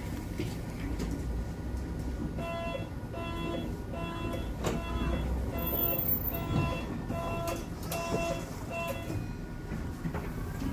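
KT4D tram's door-closing warning beeper sounding over and over, about two short beeps a second, while the doors shut, with a single knock as the doors close partway through.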